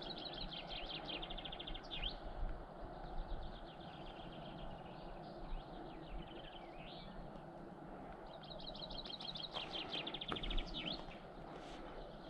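Small songbird singing a fast trill of repeated high notes, loudest at the start and again about eight and a half seconds in, with fainter song between, over steady low background noise.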